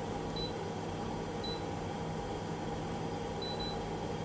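Skywalker drum coffee roaster running steadily in cooling mode, its fan and motor giving an even hum. A few faint, short, high beeps sound through it as buttons are pressed on its control panel.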